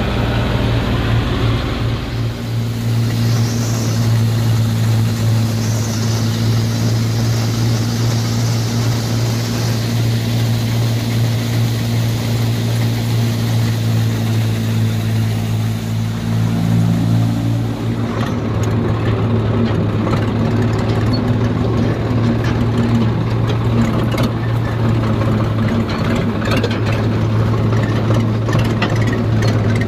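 John Deere tractor's diesel engine running steadily at working speed, powering a threshing machine whose drum and sieves run with it. After a cut about 18 seconds in, a tractor engine runs steadily as it drives over a harvested field.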